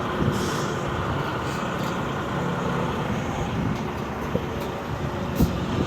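Semi truck's diesel engine idling steadily while the air brake system primes and builds pressure, with one sharp click about five seconds in.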